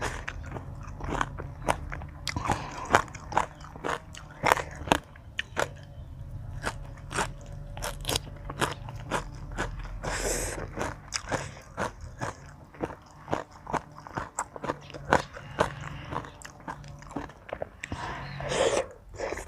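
Close-miked eating of a spicy Thai seafood pounded salad: quick, irregular bites, crunches and chewing, with a brief noisier rush about halfway through and again near the end.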